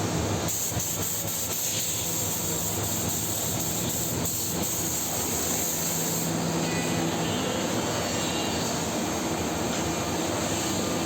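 Four-head CNC router running and cutting wood: a steady mechanical hum with the hiss of the spindles and cutters, the high hiss easing off about six seconds in.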